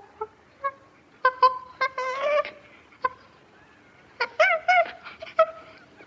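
Geese honking: a string of short, pitched calls, busiest about a second and a half in and again from about four seconds in.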